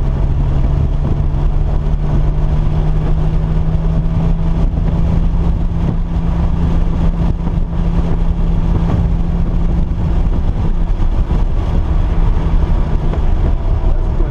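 Car engine running at a steady, unchanging pitch over a heavy low rumble, with no revving.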